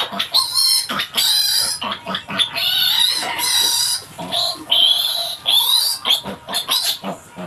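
Piglet squealing loudly and repeatedly while held up by its hind legs and castrated: a string of high-pitched, wavering squeals, one after another with only brief breaks.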